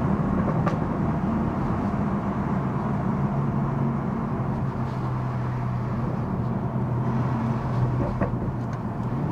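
BMW M240i's B58 3.0-litre turbocharged straight-six, with its resonator and particulate filter removed (Scorpion exhaust), cruising at steady low revs. From inside the cabin it is a steady, deep exhaust drone over tyre and road noise.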